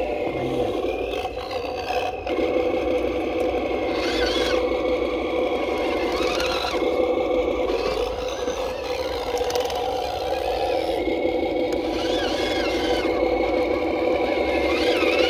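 Cross RC KrAZ 260 6x6 scale RC truck crawling over rocks and mud, its motor and geartrain giving a steady whine.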